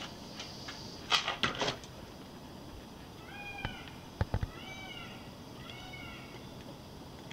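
A few sharp knocks about a second in, then a cat meowing three times in short rising-and-falling cries.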